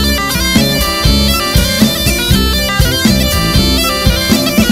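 Background music: a tulum, the Black Sea bagpipe, playing a fast melody over a steady beat.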